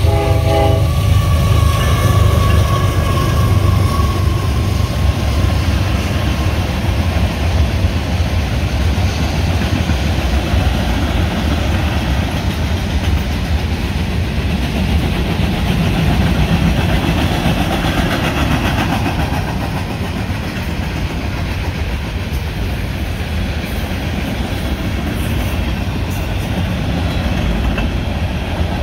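Freight train passing close by: the last of the locomotive's horn chord in the first second, then the steady rumble and rattle of covered hopper cars rolling over the rails. A high ringing tone fades away over the first few seconds.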